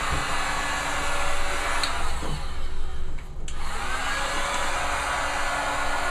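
Electric heat gun blowing steadily, a hair-dryer-like rush, as it heats a VW Caddy headlight housing to loosen the lens seal. Around the middle the rush thins and its pitch briefly dips and returns as the gun is swung.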